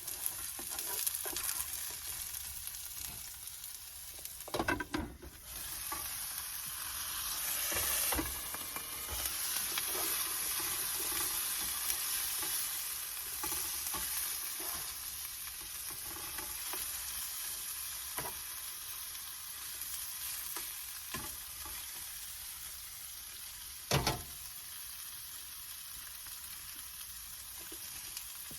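Onions and carrots sizzling as they are sautéed in a hot pan, with a utensil stirring and knocking against the pan now and then; the sharpest knocks come about five seconds in and again a few seconds before the end.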